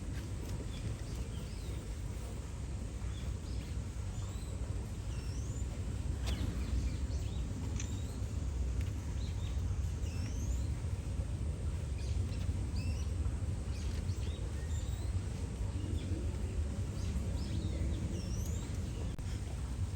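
Outdoor ambience: a steady low rumble with many short, quick bird chirps scattered throughout.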